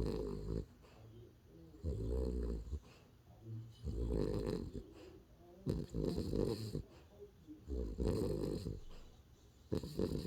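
A dog snoring in its sleep: a low, rough snore about every two seconds, six in all.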